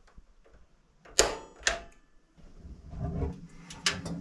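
Sharp clacks from the windows of a small cabin being opened, coming in two pairs about half a second apart. A low steady hum comes in about halfway through.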